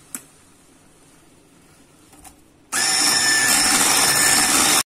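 Electric hand mixer beating a thick cake batter studded with chopped walnuts. It switches on almost three seconds in with a loud, steady whine and stops abruptly near the end.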